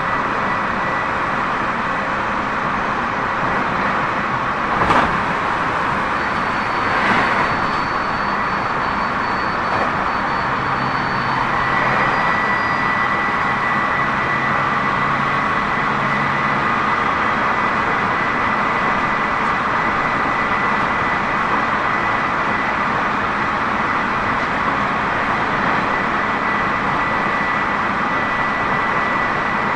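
Tobu 30000 series electric train heard from inside the car, running at a steady speed: a continuous rumble of wheels on rail with a steady high whine. There are two sharp knocks about five and seven seconds in.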